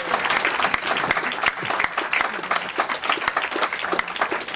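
A crowd of party guests applauding: many hands clapping in a dense, uneven patter, with a voice or two briefly heard under it.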